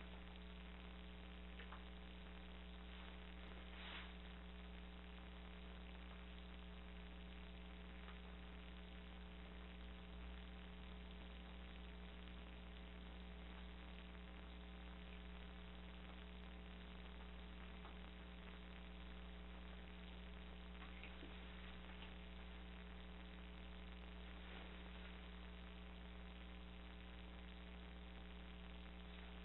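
Near silence: room tone with a steady electrical hum.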